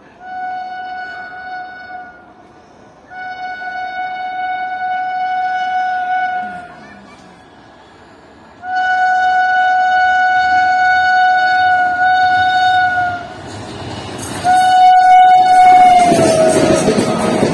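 Indian express train's locomotive horn sounding four long blasts of one steady tone as it approaches at speed; the last blast drops in pitch as the locomotive passes. Near the end comes a loud rush and rumble of the coaches going by at speed.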